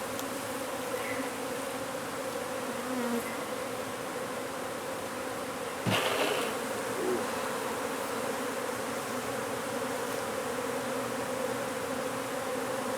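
Honey bee colony buzzing in a steady, continuous drone around an opened hive. A single sharp knock about six seconds in.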